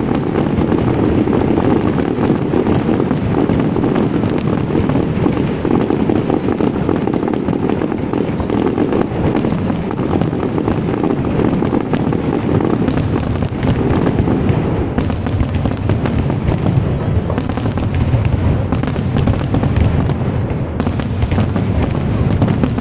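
Fireworks display: a dense, unbroken barrage of bursts and crackle.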